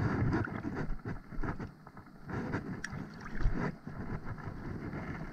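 Shallow water sloshing and splashing around a person's legs as he wades, in uneven swishing surges.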